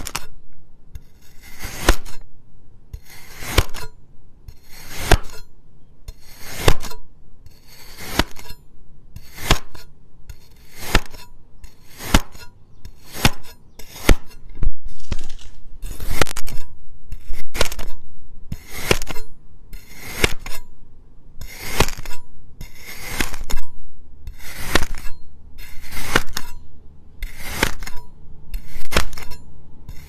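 A knife blade slicing repeatedly down through a slab of kinetic sand onto a cutting board, about one short gritty cut a second.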